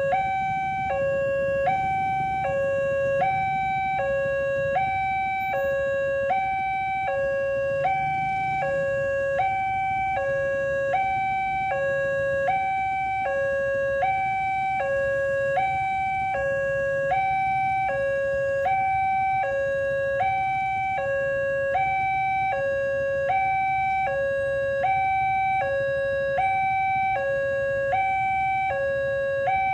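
Railway level-crossing warning siren sounding a steady electronic two-tone hi-lo alarm, switching between two notes about every three-quarters of a second, over a low steady rumble.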